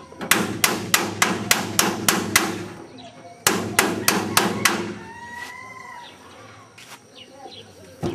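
Hammer blows on the wheel bearing of a hand-pulled cart, about four a second in two quick runs with a short pause between. A chicken calls briefly after the second run.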